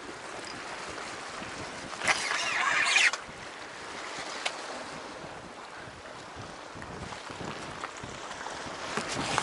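Wind buffeting the microphone over sea surf washing against rocks, with a louder rushing surge about two seconds in that lasts about a second. A few sharp knocks come near the end.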